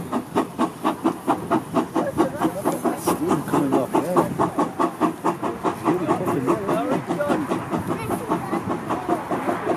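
Steam locomotive exhaust chuffing in a rapid, even beat as it hauls its train of carriages away.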